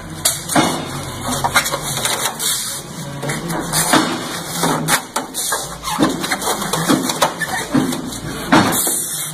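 Workshop noise: repeated knocks and clatter, irregular and at times several a second, over a steady low machine hum.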